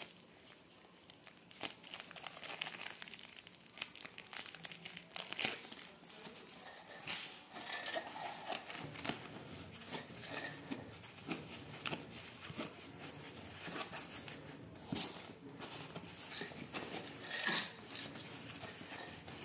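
Plastic packaging and white foam wrapping crinkling and rustling as hands unwrap a parcel, with irregular crackles throughout.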